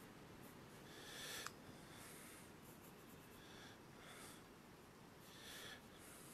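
Faint pencil strokes scratching on paper, several short strokes in a row.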